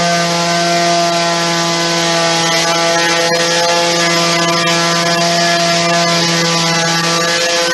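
Electric sander running against an MDF window sill to take off the primer, with the dust-extraction vacuum it switches on running alongside: a steady hum over an even hiss.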